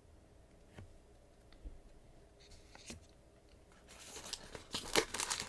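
Trading cards and their packaging being handled: a few faint clicks, then from about four seconds in a run of crackly rustling and clicks.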